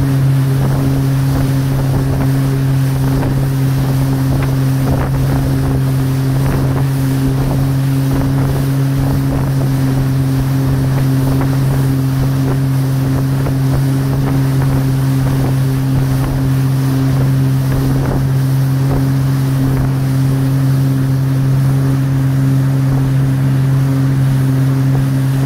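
Motorboat engine running steadily at towing speed, a constant low drone, mixed with wind buffeting the microphone and the rush of the churning wake.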